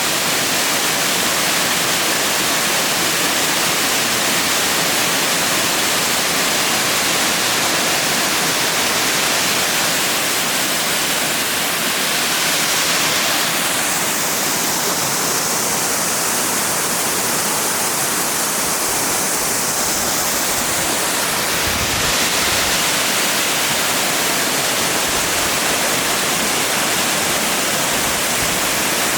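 Tarzan Falls and the stream below it: a steady rush of falling and flowing water, its hiss easing a little for several seconds in the middle.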